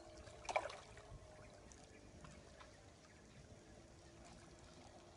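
Quiet lakeside with faint water at the rocks, and one brief sharp sound about half a second in.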